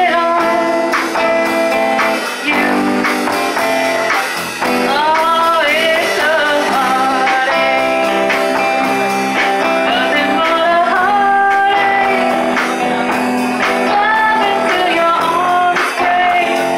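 Live band music: a woman singing a melody over guitar accompaniment.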